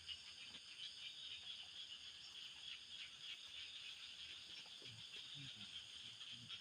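Faint steady insect chorus, a high shrill buzzing held in several pitch bands with a fine rapid pulse. A few faint low knocks or rustles come near the end.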